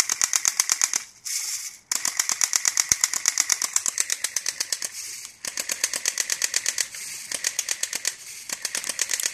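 Airsoft mini Uzi firing full-auto in long bursts: an even, rapid rattle of shots at about eight a second, with brief pauses about a second in and again about five seconds in.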